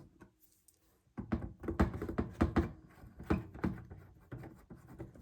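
Clicks and knocks of a screwdriver working on the case screws of a vintage Soviet multimeter, with the case being handled. They start about a second in, come thick and fast, and thin out near the end.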